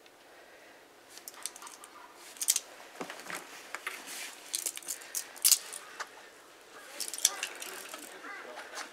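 A run of irregular, sharp clicks and clinks, like small hard objects knocking together, heaviest from about two to seven seconds in.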